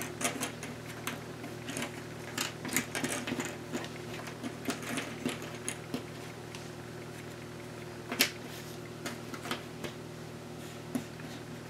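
Cardboard jigsaw puzzle pieces clicking and tapping as they are handled and set down on a table: a rapid run of small clicks over the first six seconds, then a few sparser taps, the loudest about eight seconds in. A steady low hum runs underneath.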